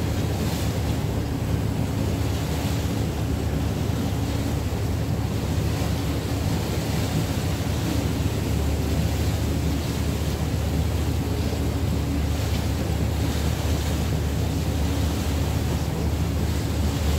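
Steady low hum of a paddle steamer's machinery running under way, with wind noise on the microphone; no horn sounds.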